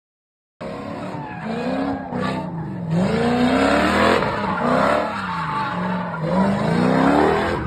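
A sedan doing donuts: the engine revs rise and fall in waves every second or two as the rear tyres spin and squeal on the asphalt. The sound starts abruptly about half a second in.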